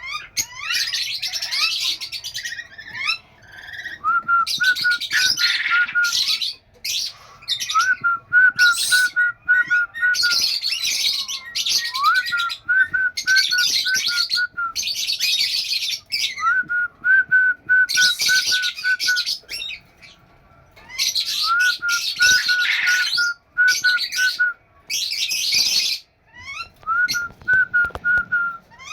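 Blue-streaked lory calling: loud, harsh screeches in bursts about every two seconds, alternating with a rising whistle followed by a quick run of short whistled notes at one pitch, a phrase repeated about six times.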